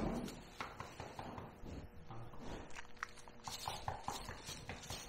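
Goats moving about close by: a scatter of light, irregular hoof clicks and knocks with rustling between them.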